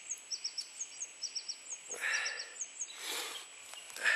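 A small songbird calling in quick groups of short, high, falling chirps, with two soft rustling swells about two and three seconds in.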